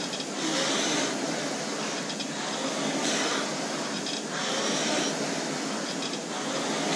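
Concept2 indoor rowing machine's air-braked flywheel whooshing as it is driven at hard race pace, the rush swelling with each stroke about every two seconds.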